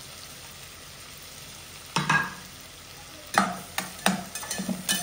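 Chopped onions sizzling in hot oil in a stainless steel pot, frying until soft, with a spatula stirring and scraping them: one stroke about two seconds in, then a run of quicker strokes near the end.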